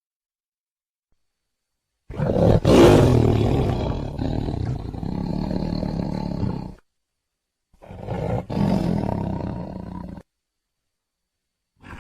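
Tiger roars: a long roar of about four and a half seconds starting about two seconds in, then a shorter one of about two and a half seconds, and the start of a third near the end, each separated by dead silence.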